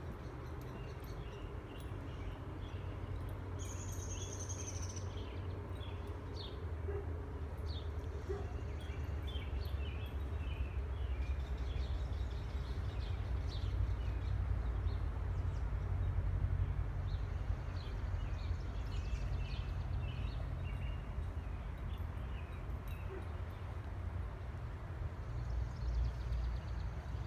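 Outdoor ambience: a steady low rumble with scattered short bird chirps, and a brief high whistle-like call about four seconds in.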